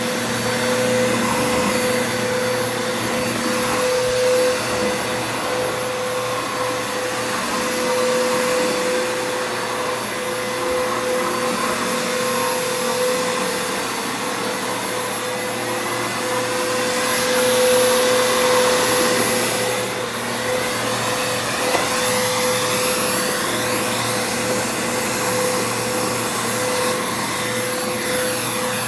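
Commercial vacuum cleaner running steadily, its motor noise carrying a steady whine, swelling slightly now and then as it is pushed over the floor.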